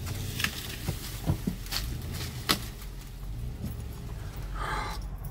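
SUV engine running steadily under load, heard from inside the cab, as it tows a tree trunk out by a chain. Four sharp cracks and knocks sound over it in the first three seconds.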